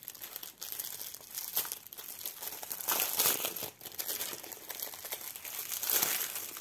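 Clear plastic packaging of a diamond-painting kit crinkling and crackling as hands open it, loudest about three seconds in and again near the end.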